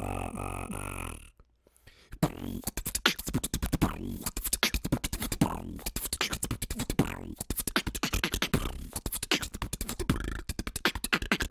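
Beatboxing: a fast, rhythmic run of mouth-made kicks, snares and clicks that starts about two seconds in, after a brief pitched vocal sound and a moment of silence.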